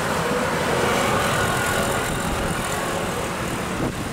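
Steady rushing noise of wind and sea waves, with no distinct events.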